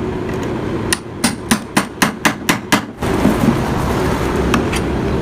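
A hammer striking metal, about eight quick blows at roughly four a second, between about one and three seconds in, over a steady background rumble.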